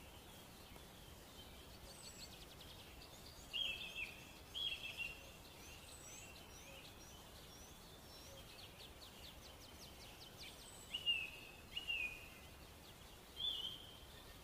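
Wild birds chirping and calling over a faint steady hiss, with short, quick notes that fall in pitch. The loudest phrases come about three and a half to five seconds in and again from about eleven seconds on.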